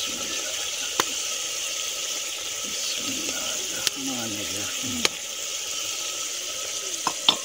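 A terracotta dish clicking sharply against the rim of a clay cooking pot about five times, twice in quick succession near the end, as chopped coriander and green chillies are scraped into the curry. A steady hiss runs underneath.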